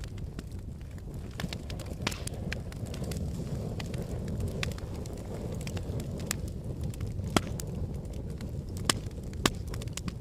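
Volcanic eruption or lava flow: a steady low rumble with scattered sharp cracks and crackles, three louder cracks near the end.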